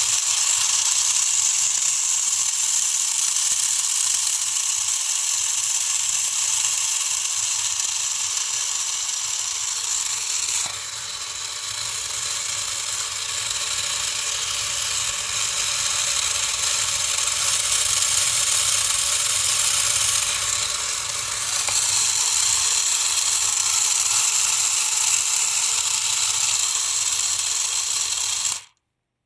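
Small electric motor of a toy washing machine whirring steadily at high speed. It drops slightly in level about 11 seconds in and again about 21 seconds in, then cuts off abruptly near the end.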